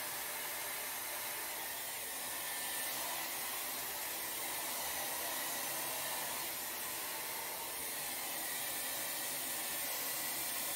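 Dyson Airwrap hair styler running, a steady rush of blown air.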